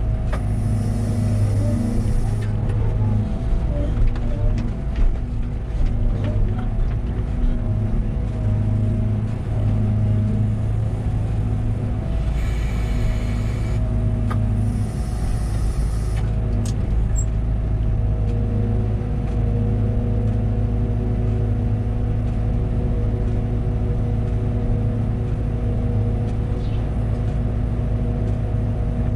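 Liebherr 914 Compact wheeled excavator's diesel engine running at a steady speed, with a few short hissing bursts, the first about a second in and two more near the middle.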